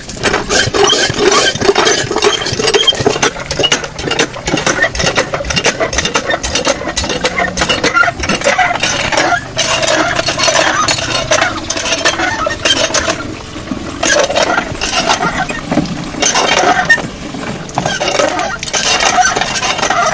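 Cast-iron hand pitcher pump being worked stroke after stroke, its handle and plunger clanking and clinking, as it draws water into a plastic container held under the spout.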